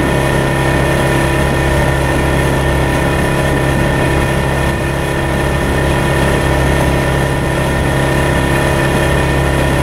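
A 40 hp outboard motor running steadily at towing speed: a constant, even engine drone with a rush of water underneath.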